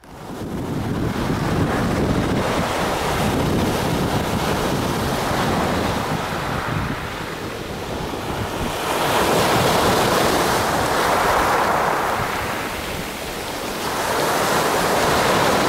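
Small sea waves breaking and washing up a pebble shore in a continuous rushing wash, surging louder about nine seconds in and again near the end.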